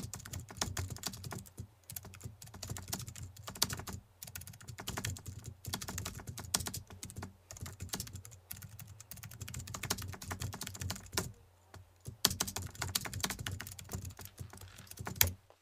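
Computer keyboard typing: rapid, irregular key clicks with a few short pauses, stopping just before the end.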